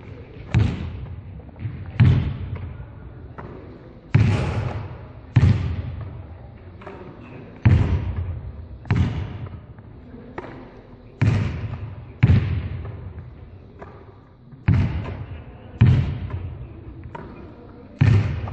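A volleyball struck and bouncing, with a sharp hit about once a second. Each hit echoes around a large sports hall.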